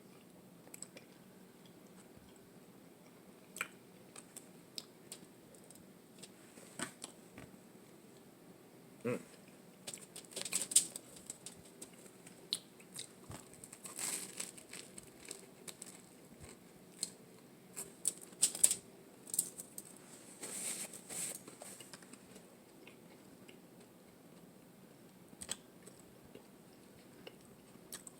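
A person eating a tuna melt sandwich close to the microphone: scattered bites, crunches and wet mouth clicks, thickest through the middle of the stretch and sparse near the start and end.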